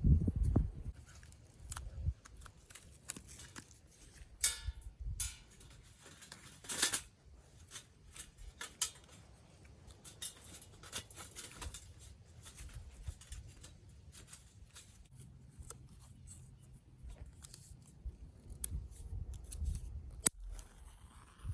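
A run of irregular small clicks, snips and scraping strokes at close range, with a low thump at the very start.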